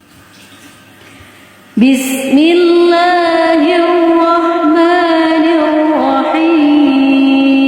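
A voice chanting Quran recitation in the drawn-out melodic tilawah style, made louder and fuller by a microphone-like voice effect. It comes in about two seconds in after a short hush, with ornamented turns in pitch that settle into a long held note.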